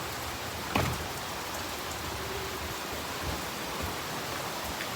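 Steady heavy rain falling during a thunderstorm, with one brief, sharp louder sound a little under a second in.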